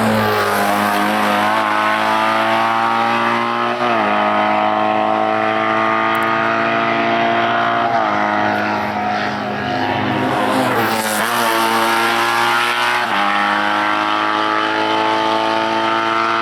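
Race car engine accelerating hard through the gears, its pitch climbing steadily in each gear and dropping sharply at each upshift, about four times.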